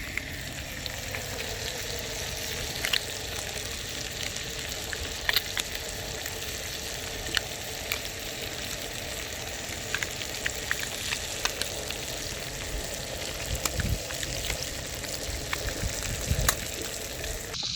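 Striped bass fillet frying in a pan on a camp stove: a steady sizzle broken by scattered sharp pops.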